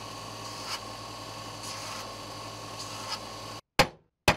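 A steady hum with a few faint ticks, then near the end two sharp hammer blows on a hand-held steel letter punch, stamping a mark into a steel plate.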